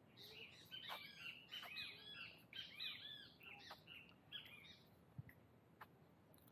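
Faint high chirping calls: a quick run of short, arched notes that lasts about four seconds, then a few isolated ticks.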